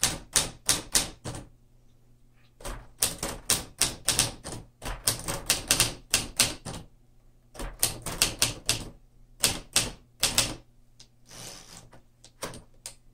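Typing on a 1954 Smith Corona portable manual typewriter: quick runs of sharp key and typebar strikes, with short pauses between bursts and a longer lull near the end.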